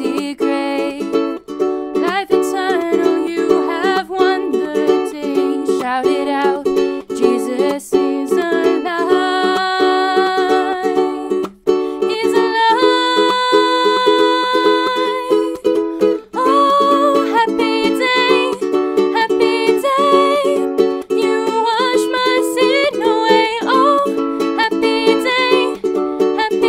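Strummed ukulele accompanying singing of a worship song, with a steady rhythmic strum under the sung melody.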